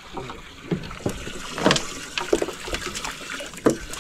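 Irregular knocks and splashes from handling on a small fishing boat's deck, with water trickling in the background.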